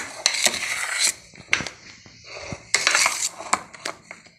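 Metal kitchen utensil scraping and clinking against a dish while cream is scooped onto a cake: two stretches of scraping about a second long, with sharp clinks between and after them.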